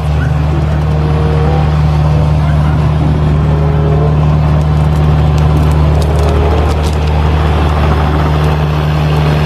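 Kubota KX057-4 mini excavator's diesel engine running steadily under load with a strong low hum while it tears out roots and brush. A few sharp cracks of breaking wood come about halfway through.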